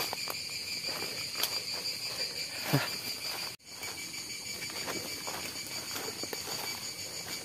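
Insects chirring in a steady, high-pitched drone, with irregular footsteps and rustling in dry leaf litter on a forest trail. The sound cuts out for an instant about halfway through.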